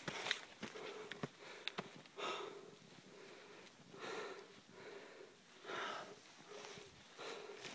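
A person breathing hard close to the microphone, about one breath every two seconds, with a few light clicks in the first two seconds.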